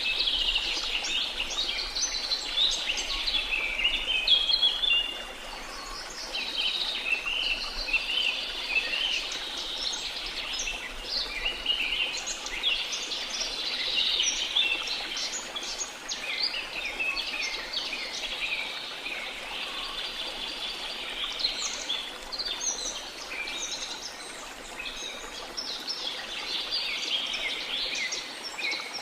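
Rainforest bird chorus: many birds chirping and trilling in dense, overlapping calls, over a soft steady hiss of rain.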